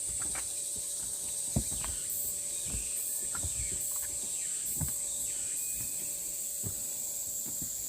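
Cicadas droning steadily in summer woodland, with a higher pulsing insect call coming and going. Irregular low knocks and thumps sound through it, the loudest about a second and a half in.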